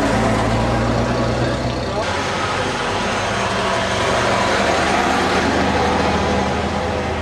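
A motor vehicle engine running steadily close by, its low note shifting about two seconds in, over busy street noise.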